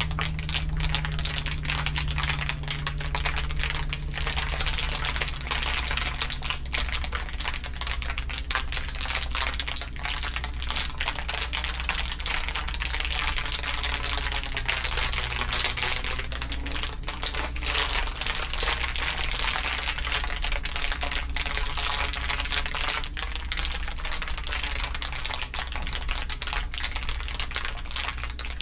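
Layered crinkling, a dense continuous crackle of many small clicks, run through a swirling, sweeping filter effect. A steady low hum lies underneath, with a low tone fading out in the first few seconds.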